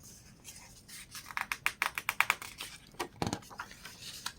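Paper catalog pages being handled and turned: a quick run of crisp flicks and rustles, with one soft thump about three seconds in.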